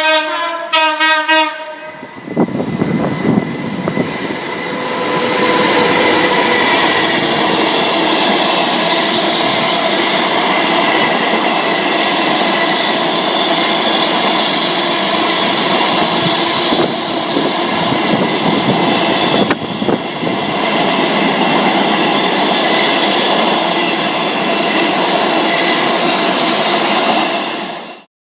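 A passing train's horn sounds in a few short blasts, a driver's tone for the trainspotter, then the train passes close by with a loud, steady rumble and wheel clatter on the rails that cuts off suddenly near the end.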